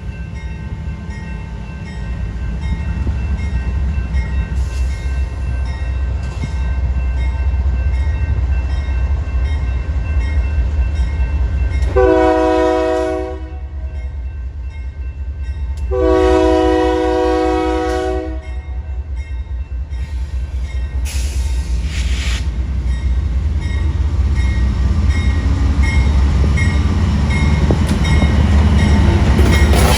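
Diesel-hauled train approaching, its low engine rumble growing louder, while the locomotive's multi-chime air horn sounds two blasts, the second one longer.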